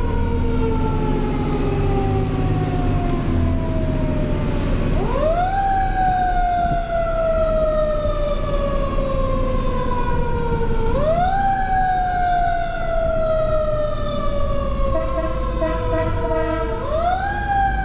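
Fire engine's siren heard from inside the cab while the truck drives. Its pitch sweeps up quickly about every six seconds, three times, and sinks slowly in between, over the low rumble of the engine and road.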